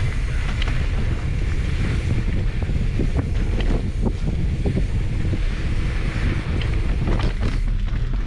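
Wind buffeting the microphone during a mountain bike ride on a dirt singletrack: a steady low rumble, with scattered knocks and rattles from the bike over bumps in the trail.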